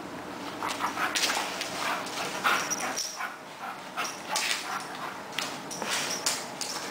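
Alaskan Malamute spinning after its tail on a hardwood floor: claws scrabbling and clicking on the wood, with short whines and yips, starting about half a second in.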